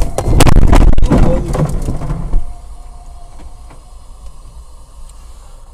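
A lorry sideswiping the car: loud crunching and scraping of its body against the car's side, heard from inside the cabin, lasting about two and a half seconds before dropping to low road and engine noise.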